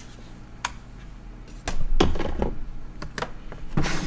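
Five or so separate clicks and knocks from a Cooler Master Novatouch TKL Topre keyboard being handled, the loudest about two seconds in.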